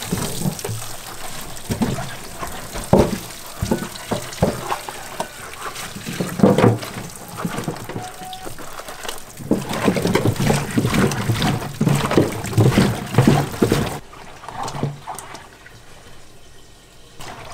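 Tap water running into a stainless steel sink over raw chicken feet while rubber-gloved hands rub and churn them, with splashing and squelching as the blood is rinsed out. The hiss of running water cuts off abruptly near the end, leaving only the wet handling of the feet.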